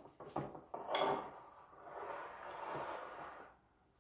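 Glass mixing bowls knocked and slid across a stone countertop: a few light clicks and a knock about a second in, then about two seconds of scraping rub.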